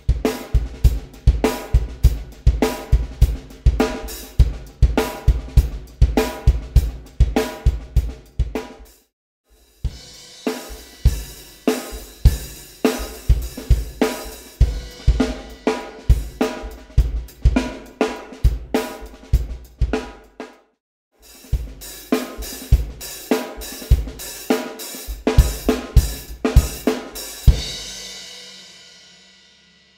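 Acoustic drum kit played in a steady beat: kick, snare, hi-hat and Sabian cymbals. The playing stops briefly twice, about nine and twenty-one seconds in, and ends on a cymbal hit left ringing out near the end.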